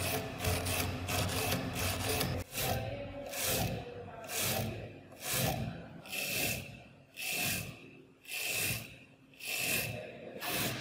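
Stiff-bristled brush scrubbing crusted rust and dirt off a steel hammer head held in a vise. It starts with quick continuous scrubbing, then about two and a half seconds in it changes to slower separate strokes, about one and a half a second.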